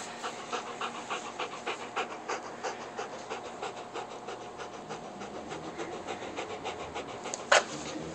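Golden retriever panting close by, quick and even. A brief sharp sound cuts in near the end.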